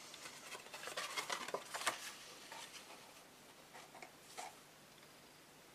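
Cardstock pieces being handled and shuffled by hand: a brief flurry of rustling and small taps in the first two seconds, then a few lighter taps.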